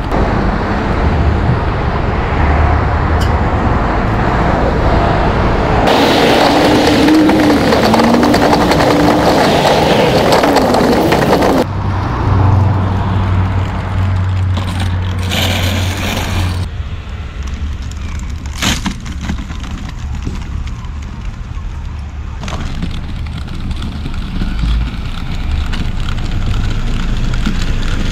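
Outdoor street noise, steady rumble and hiss with passing traffic, while a manual wheelchair rolls along the footpath and road. The background changes abruptly several times, and there is a sharp click a little past halfway.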